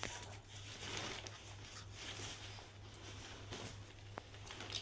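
Faint handling noises of small parts and tools: scattered light rustles and a couple of sharp clicks, one at the start and one about four seconds in, over a steady low hum.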